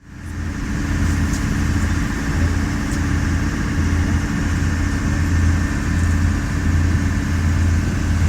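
An engine running steadily: a low hum that swells and dips about once a second, fading in at the start.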